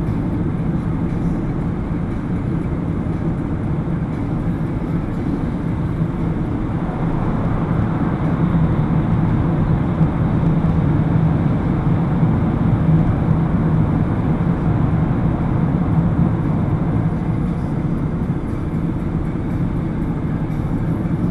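Steady road and engine noise heard inside a car's cabin at motorway speed, a little louder for several seconds in the middle while the car passes through a tunnel.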